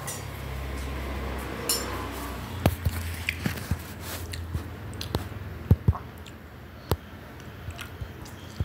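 Room tone with a low hum for the first couple of seconds, then about ten scattered, irregular sharp clicks and taps.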